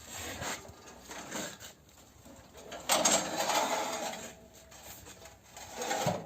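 Cinder-block making machine being worked: metal clanks and rattles, with a louder burst of machine noise about three seconds in that dies away over a second or so.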